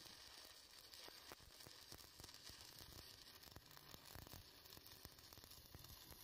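Faint, steady crackling sizzle of a stick-welding arc burning along a steel beam joint, with occasional sharp pops.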